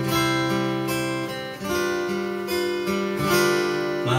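Acoustic guitar strummed in a steady rhythm, with the chords changing every second or so.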